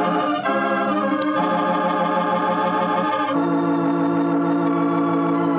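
Organ music playing slow sustained chords, changing chord about half a second in, again at about a second and a half, and once more after three seconds: a bridge between scenes in a radio drama.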